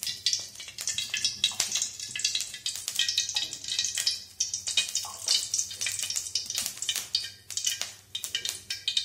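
Cooking oil crackling and sizzling as it heats in an aluminium kadai: a dense, irregular run of small crackles over a low steady hum.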